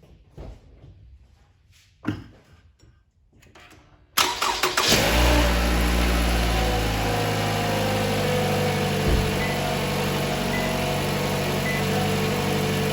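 A few faint clicks, then about four seconds in the 2016 Toyota RAV4's engine is started: a short burst of starter cranking, and it catches at once and settles into a steady idle.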